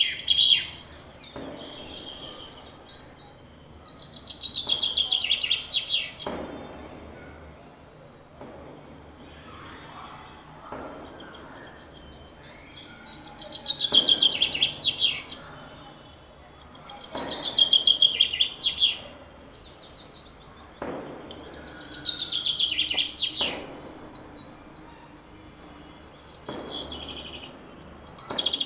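A forest bird singing the same short phrase over and over: a quick run of notes falling in pitch, lasting about two seconds. The phrase repeats about five times, with quieter pauses of a few seconds between songs.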